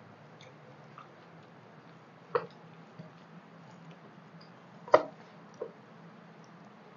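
People eating rice and curry by hand from metal plates: soft squishes and small ticks of fingers mixing food, with quiet chewing. Two sharp taps against the tableware about two and a half and five seconds in, the second the loudest, followed by a smaller tap.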